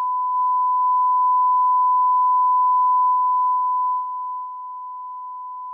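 Steady 1 kHz sine test tone from a mixing console's built-in oscillator, the reference signal used to line up a tape machine's VU meters. It is turned down about four seconds in and keeps sounding at the lower level.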